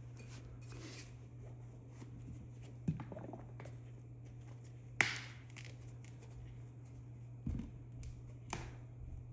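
Light handling noises of small parts and tools: a few scattered clicks and knocks, the sharpest about five seconds in and a dull thump about seven and a half seconds in, over a steady low hum.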